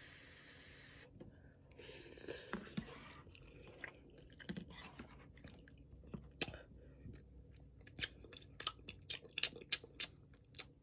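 Close-up mouth sounds of a person eating instant ramen noodles: chewing and wet smacking. There is a short hissing burst about two seconds in, and a run of sharp smacks, about two a second, near the end.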